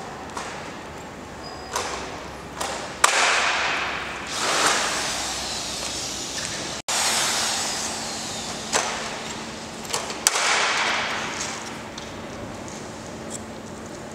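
Blind rivets being set into the aluminium bottom rail of a roller shutter with a long-handled hand riveter: several sharp snaps a second or more apart, each followed by a short rush of metal handling noise.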